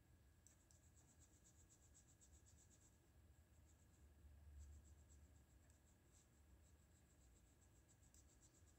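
Faint scratching of a 2H graphite pencil on Strathmore paper, in runs of rapid short sketching strokes broken by brief pauses, one about three seconds in.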